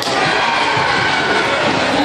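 Spectators in a gym shouting and cheering, many voices overlapping at once.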